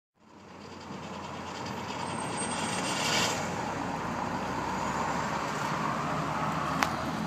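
Steady road traffic and engine noise that fades in over the first second, with a single sharp click near the end.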